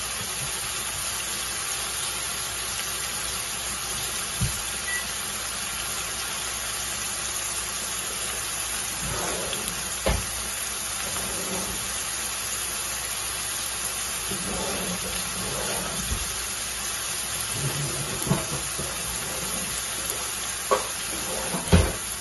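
Marinated boneless chicken pieces sizzling in hot oil in a cast-iron skillet over high heat, which keeps the chicken from releasing water. The sizzle stays steady, with a few knocks, the loudest near the end.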